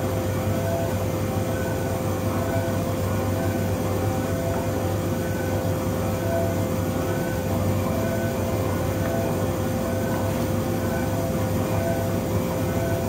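Tugboat's diesel engines running at a steady drone, with a constant high whine over the low rumble.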